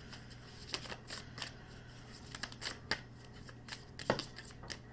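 Tarot cards being shuffled and handled: a run of irregular light flicks and snaps of card stock, the loudest about four seconds in.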